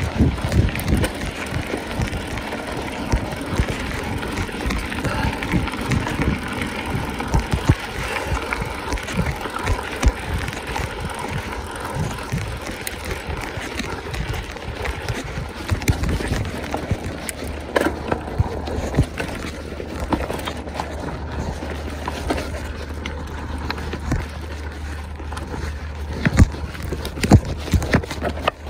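Mountain bike being ridden over a rough trail: continuous tyre noise with frequent rattles and knocks from the bike over bumps. A low steady rumble comes in about halfway through, and a few sharper knocks come near the end.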